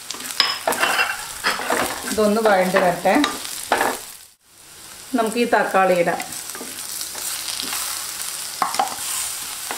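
Wooden spatula stirring and scraping shallots and curry leaves frying in coconut oil in an earthenware pot, over a steady sizzle. The sound drops out briefly a little over four seconds in.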